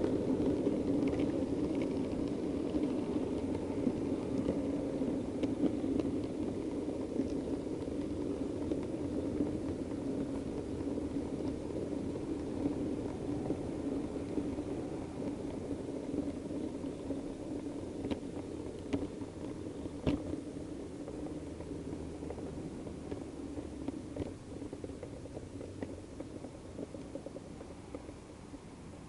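Model diesel multiple unit running along the layout's track: a steady rumble of motor and wheels with a few sharp clicks, fading as the train slows toward the buffer stop.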